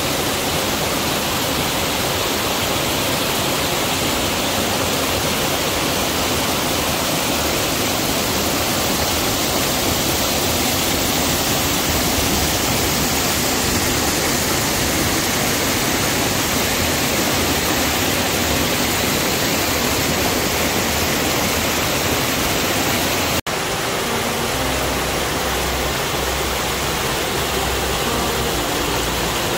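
Mountain stream tumbling in small cascades over mossy boulders: a steady rush of falling water. After a brief break about three-quarters of the way through, the rush goes on from another cascade, a little deeper in tone.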